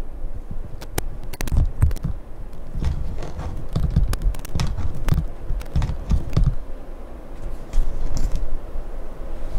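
Irregular crackling clicks and low thumps from a camcorder's external microphone as its coiled cable is moved by hand. This is cable handling noise getting into the recording.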